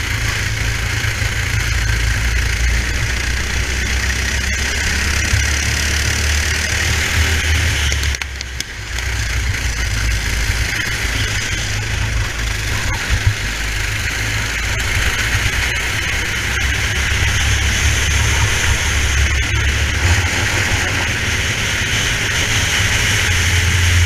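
Racing kart's engine running at race speed, heard from onboard with wind and tyre noise; the sound dips briefly about eight seconds in, then picks up again.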